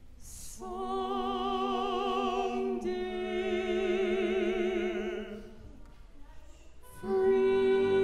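Operatic solo singing from a classical duet for soprano and tenor with orchestra: long held notes with wide vibrato, easing off past the middle, then a louder held note entering about seven seconds in.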